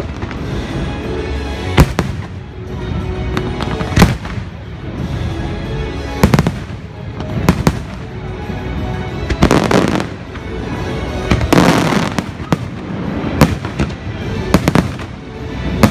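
Fireworks show shells bursting with sharp bangs every one to two seconds, with a denser run of bursts about two-thirds of the way through. The show's music plays steadily underneath.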